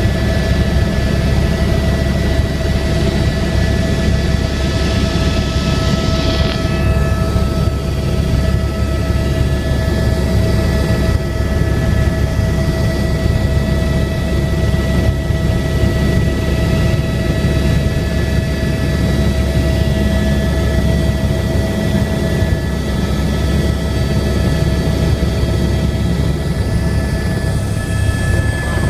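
Eurocopter AS350 Écureuil helicopter in flight, heard from inside the cabin: a steady turbine and gearbox whine over the deep rumble of the rotor and airflow.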